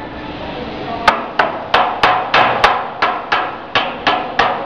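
Hammer striking metal at the end bearing housing of a roller on a potato washing and peeling machine, as the roller is being changed: a run of about a dozen sharp blows with a short ring after each, roughly three a second, starting about a second in.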